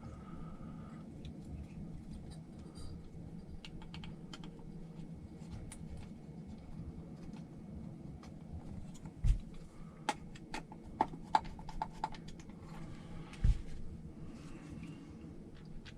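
Small clicks and taps of RC car parts being handled while fitting a cooling fan mount, with a quick run of sharp clicks partway through and two dull thumps, the louder events of the stretch. A low steady hum lies underneath.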